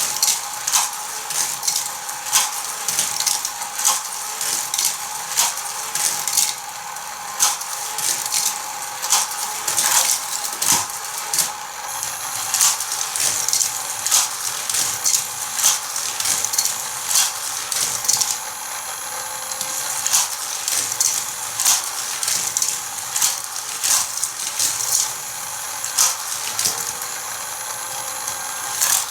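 Motorized Hot Wheels power booster whirring steadily while die-cast toy cars clatter and click through plastic track, many small knocks following one another.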